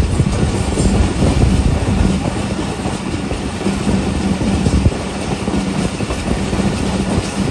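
Passenger train coach running at speed, heard at an open window: a steady rumble and clatter of steel wheels on the rails, with air rushing past.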